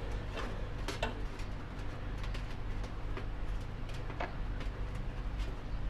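Light, irregular clicks from a motorcycle chain breaker tool as it is turned against a chain link to push the pin out, over a steady low hum.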